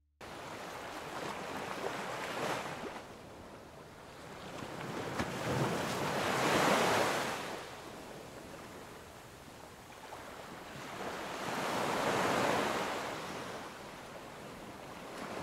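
Small waves breaking and washing up a sandy beach, the surf rising and falling in slow surges a few seconds apart.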